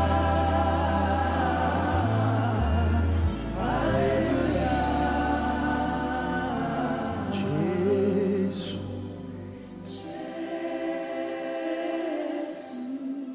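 Gospel worship music: a choir singing long held notes over a steady bass line. About ten seconds in, the bass drops out and the music thins and quietens.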